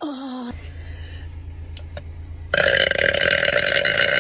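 A woman burping: a short burp falling in pitch at the start, then a long, loud belch beginning about two and a half seconds in and still going at the end.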